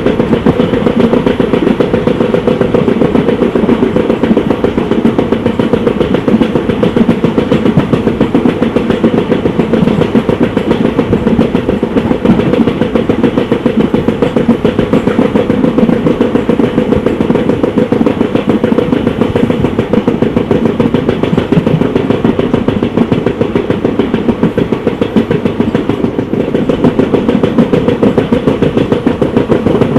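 Passenger train running along the line: a steady rumble of the wheels on the rails with a continuous clatter.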